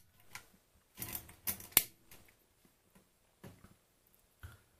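Feliks-M pinwheel mechanical calculator being worked by hand: a few separate short metal clicks and scrapes from its levers and mechanism, the sharpest just before two seconds in.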